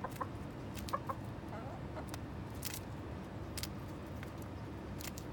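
Chickens clucking softly a few times in the first couple of seconds, then several sharp clicks as the hens peck and tear at a hand-held lettuce leaf.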